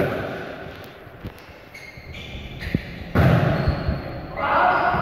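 Volleyball thuds as the ball is hit and bounces on a hard indoor court, with players' voices in a large hall, the sound getting louder and busier about three seconds in.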